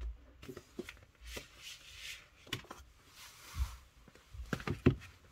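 Card and paper rustling and sliding as a printed sleeve is pulled out of a vinyl LP's cardboard jacket, with a few light taps and knocks, the sharpest just before the end.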